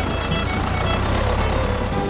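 Low vehicle engine rumble over background music.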